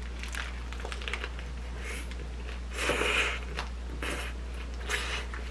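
Close-up eating sounds: biting into and chewing a paper-wrapped salmon burrito, with a short rustling crunch about three seconds in and a few smaller ones.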